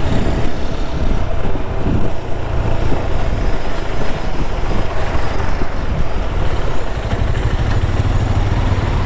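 Motorcycle riding on the highway: wind rushing over the microphone, with the engine running underneath. A faint high-pitched hiss comes in about three seconds in and lasts a few seconds.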